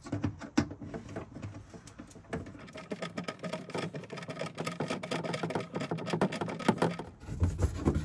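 Screwdriver working screws out of a wooden RV cabinet panel: a fast run of small clicks and scrapes that stops about seven seconds in.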